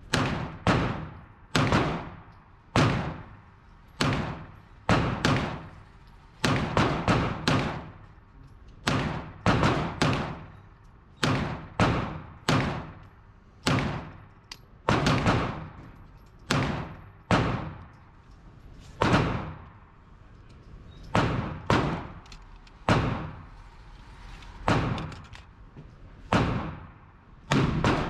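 Handgun shots in an indoor shooting range, several dozen over the stretch, fired singly and in quick pairs and strings, each with a short echoing tail off the range walls.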